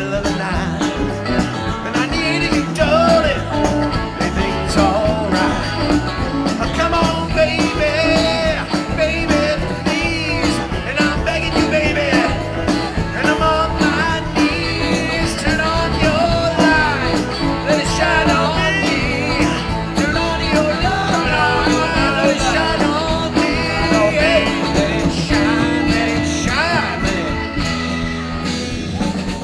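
Live rock band playing a song on amplified electric guitars and drums, with a singer's lead vocal.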